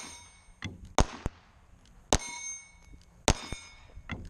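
Four pistol shots about a second apart, the steel plate targets ringing with a lingering clang after hits.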